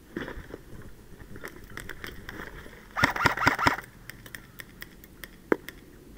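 Airsoft rifle firing a short full-auto burst about three seconds in, a rapid rattle of clicks lasting under a second, amid scattered single ticks and scuffs.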